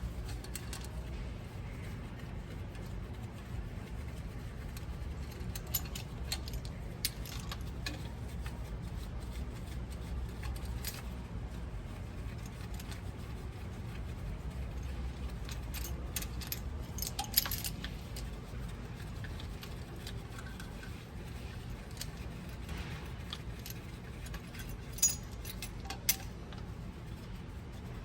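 Small metal pieces clinking and rattling in scattered light taps, with a sharper clink about two-thirds of the way through and two more near the end, over a steady low hum.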